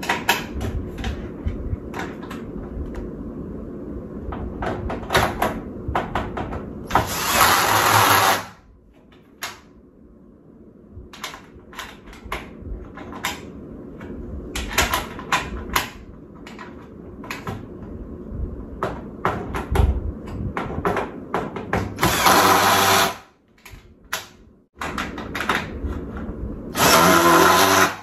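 Cordless drill driving screws into the corrugated metal panels of a raised garden bed, in three short runs of a second or so, the first a little longer. Between them come many clicks and knocks as the metal panels are handled.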